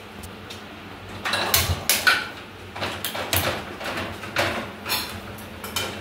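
Steel kitchen utensils clattering: a lid and containers handled and set down, with several irregular knocks and clinks.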